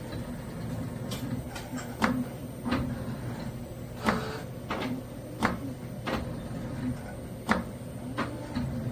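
CNC automatic spring-making machine running: a steady low hum with sharp clacks repeating at uneven intervals, roughly every half second to a second.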